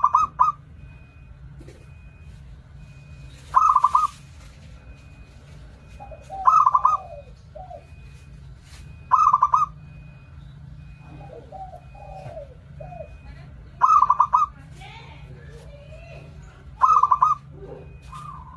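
Zebra dove (perkutut) singing: six short, stuttering coo phrases, each repeated about every three seconds. Softer, lower cooing comes between them. This is the decoy call used to lure wild zebra doves to the trap.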